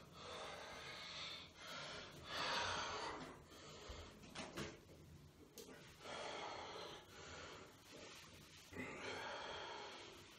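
A person breathing hard in noisy gasps and snorts, coming in stretches of about a second with short pauses between.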